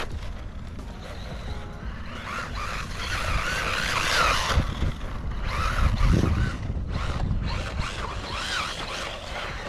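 Brushless motor of a JJRC C8805 RC truck whining up and down in pitch with the throttle as its tyres churn through soft sand. A louder surge comes about six seconds in.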